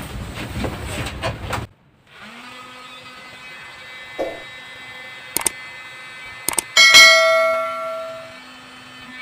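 An electric heat gun blowing, cutting off abruptly after a couple of seconds. Then, over a faint steady hum, a few light metal knocks and one loud metallic clang about seven seconds in that rings on for over a second.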